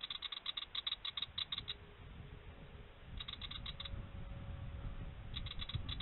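Willie wagtail giving its rapid scolding chatter: three runs of quick, dry chit notes, about eight a second, the first lasting nearly two seconds and two shorter runs later, over a low rumble.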